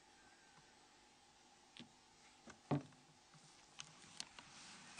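Mostly quiet, with a few scattered small clicks and taps, the loudest a little under three seconds in: the plastic flip housing parts of a Nokia N93 phone being handled and pried apart with tweezers.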